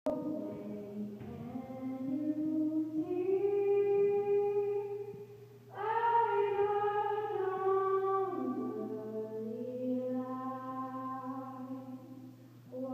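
A girl singing the national anthem solo and unaccompanied into a microphone over a PA, long held notes in two phrases with a breath between them about five and a half seconds in. A steady low hum runs underneath.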